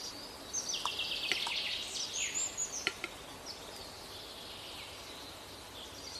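Wild birds calling in forest: high-pitched rapid trills and chirps, with a few short clicks.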